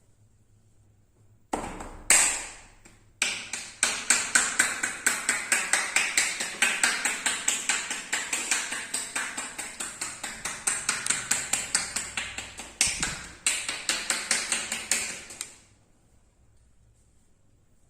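Rapid percussive massage strokes: the masseur's hands strike the body in quick, even slaps, about five or six a second. A couple of single strikes lead in, then a long run with a brief break near the end.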